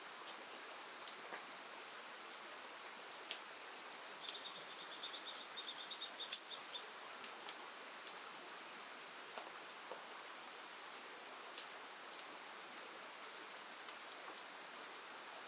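Steady hiss of rain and river water with scattered sharp ticks, and a bird's rapid high trill about four seconds in that lasts a couple of seconds.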